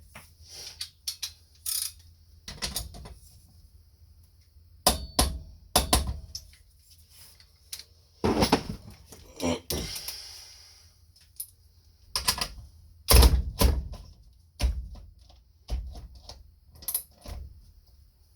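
Hand tools being worked on a bolt: a string of irregular metal clicks, knocks and clanks, with a longer rattling burst about eight seconds in.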